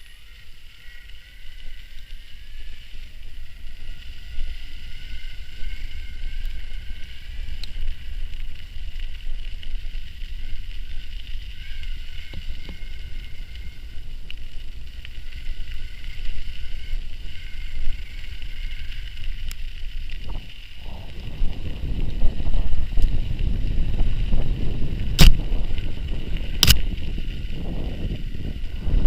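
Riding an electric mountain bike, with heavy low rumble from wind and riding on the microphone and a steady high motor whine whose pitch drifts slowly. The rumble grows much heavier about two-thirds through, with two sharp knocks near the end.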